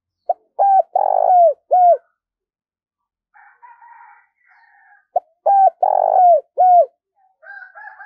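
Spotted dove cooing: two loud phrases about five seconds apart, each of four notes, the third longer and rolling. Fainter, higher calls come between the phrases and near the end.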